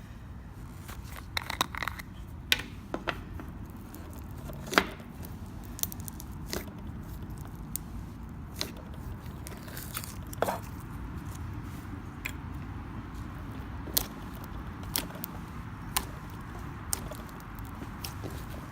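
Scattered sharp clicks and crackles of hand handling, irregular and about one a second, over a steady low rumble.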